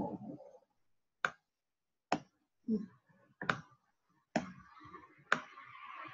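Computer mouse clicking: five sharp, separate clicks spaced about a second apart. Faint low sounds fall between them, and a soft hiss builds near the end.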